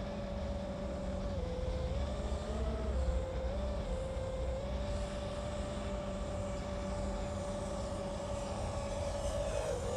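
FPV quadcopter's motors and propellers whining at a steady pitch in flight. The pitch dips briefly a few times in the first four seconds and again near the end.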